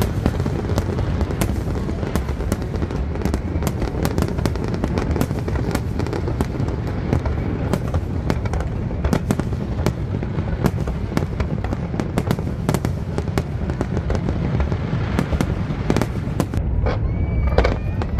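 Large fireworks display: a continuous barrage of aerial shells bursting, with a steady deep rumble of booms and many sharp cracks and crackles over it.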